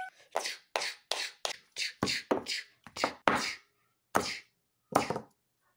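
Green begleri beads swung and flipped by hand, knocking in quick, uneven strokes about two to three a second, with short pauses in the second half. This is a test of whether the glued repair to the cord holds.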